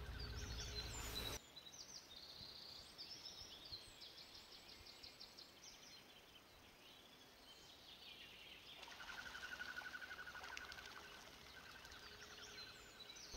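Faint outdoor ambience with small birds chirping and trilling, and a repeated pulsed call standing out about two-thirds of the way through. A low rumble on the microphone cuts off abruptly about a second and a half in.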